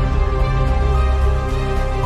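Background music: sustained chords over a deep, steady bass, with no drum hits.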